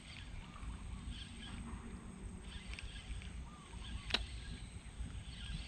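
Outdoor ambience: birds chirping and calling now and then over a steady low rumble, with one sharp click about four seconds in.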